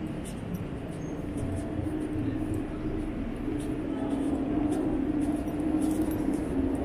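Steady low machine hum of city ambience, growing a little louder about four seconds in, with faint scattered ticks.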